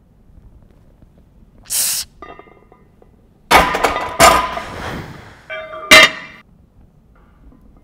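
A short sharp breath, then loud clanks of iron weight plates and the barbell striking one another, each ringing briefly. The clanks come in a cluster about halfway through, with a last sharp clank near the end.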